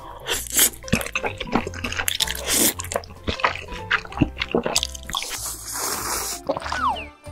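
Wet noodle-slurping sound effects with squelchy clicks, then from about five seconds in a longer drinking sound as the broth is drunk from the tipped-up bowl, over background music.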